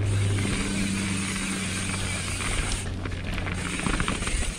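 Mountain bike rolling along a trail: a steady low hum from the tyres, then rapid clicking and rattling from about three seconds in, as the rear hub's freewheel ratchets while the rider coasts.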